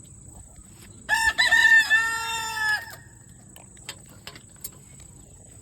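A rooster crowing once, starting about a second in: a single call of about two seconds. A few faint ticks follow.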